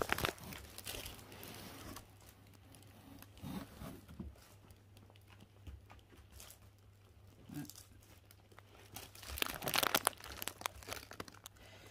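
A puppy nosing and pawing through the fabric flaps of a snuffle mat: soft, scattered rustling and crinkling, with a louder stretch of rustling about ten seconds in.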